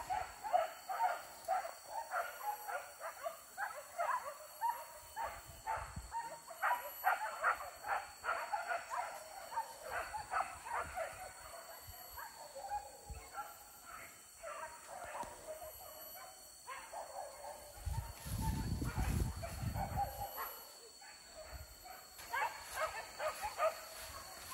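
Hunting dogs barking and yelping rapidly and without a break, several barks a second, thinning out after about half the time and picking up again near the end. A short low rumble of noise comes about three quarters of the way in.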